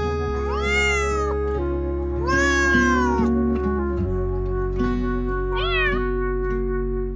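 A cat meowing three times over steady instrumental background music. The second meow is the longest, and the last is short and rises in pitch.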